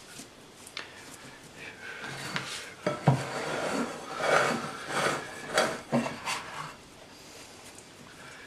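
Hands working bread dough: the risen dough is pressed and folded on a worktop to knock out the gas, then hands rub and scrape in a glass bowl as flour goes in and the dough is lifted over it. Irregular rubbing and handling noises, with a sharp knock of the glass bowl on the worktop about three seconds in.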